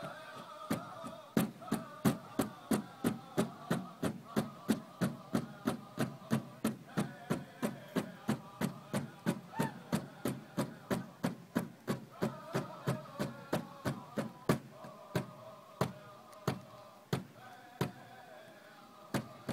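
Powwow drum struck in a steady beat, about three beats a second, with the drum group's singing over it; the singing drops out for short spells while the drumbeat carries on.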